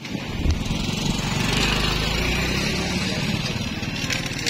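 Small engine running steadily at a fairly even speed.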